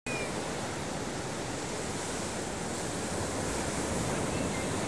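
Ocean surf on a beach: a steady rush of waves washing in, swelling slightly near the end.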